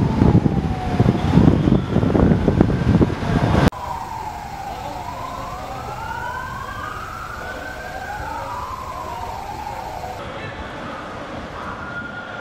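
Emergency vehicle sirens wailing, two or more overlapping, each rising and falling in pitch. For the first few seconds a siren sits under loud, low street noise that cuts off abruptly, leaving the sirens clear.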